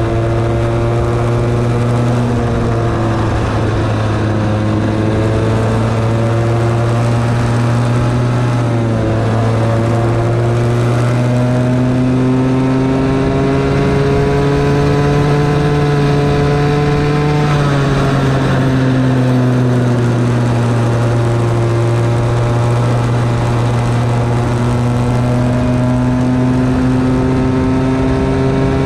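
Onboard sound of a Bambino kart's small 50cc two-stroke engine (Comer C50) running on track. Its pitch climbs gradually as the kart gathers speed, dips about nine seconds in, climbs again, drops sharply around seventeen seconds in for a corner, then rises again towards the end.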